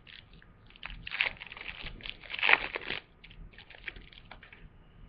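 Foil trading-card booster pack wrapper being torn open and crinkled, in irregular crackling bursts, loudest about a second in and again around two and a half seconds, then a few lighter rustles.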